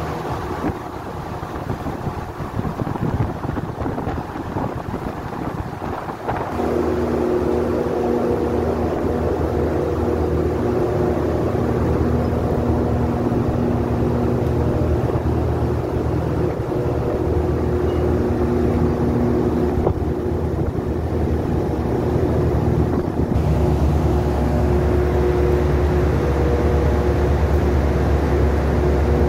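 Heavy machinery on an offshore rig deck droning steadily, with wind buffeting the microphone for the first six seconds or so. After that the drone is steadier, holding several tones, and a deeper low hum strengthens about 23 seconds in.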